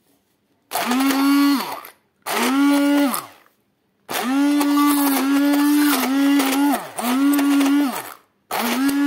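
Hand-held immersion blender pulsed in about six short bursts of roughly a second each, puréeing thick cooked watermelon-rind jam in a pot. Each burst is a steady motor whine that drops in pitch as the motor spins down.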